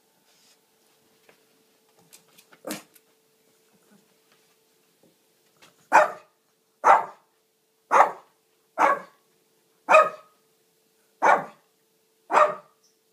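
Shih Tzu barking: one softer bark, then seven sharp barks about a second apart. It is demand-barking for a drink of water.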